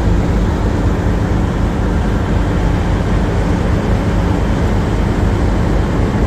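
A river motor ship's diesel engine running steadily: an unbroken low drone with a steady hiss over it.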